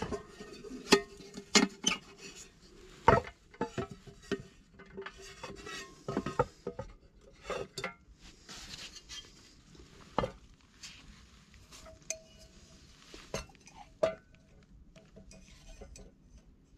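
Metal camp cookware clinking and knocking as it is handled and set down on a log: a run of irregular sharp clinks and knocks, the loudest in the first three seconds and again around ten and fourteen seconds in.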